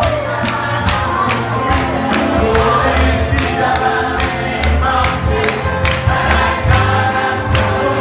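Live gospel praise music in church: many voices singing together over a steady, driving beat with strong bass.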